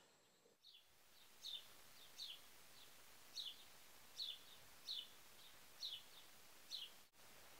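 A small bird calling faintly: a run of short, slightly falling chirps, about one a second, over a quiet outdoor hiss.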